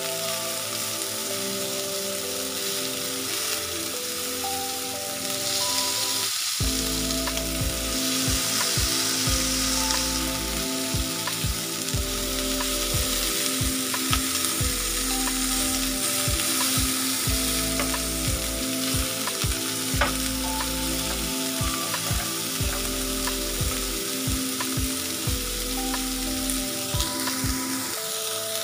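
Beef short ribs sizzling steadily as they brown in a hot grill pan, with scattered taps and scrapes of a spatula turning them. Background music with bass notes plays underneath, getting fuller about six seconds in.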